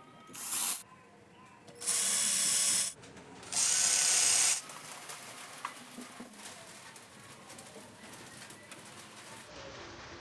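Cordless drill running in three short bursts against the steel front panel of a plywood amplifier case, fixing the panel to the wooden frame. The first burst is brief and the other two last about a second each. Light clicks and handling noise follow.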